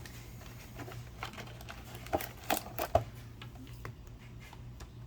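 Light clicks and taps from foil-wrapped card booster packs being handled and set on a small digital scale, with four sharper clicks close together about two to three seconds in. A steady low hum sits underneath.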